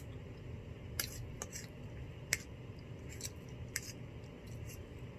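A metal utensil clicking and scraping lightly against a bowl while eating: about eight faint, irregular clicks.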